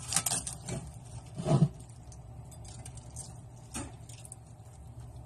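Hands packing stuffing into a raw turkey in a roasting pan: soft squishing and rustling, with a dull thump about one and a half seconds in and a lighter knock later.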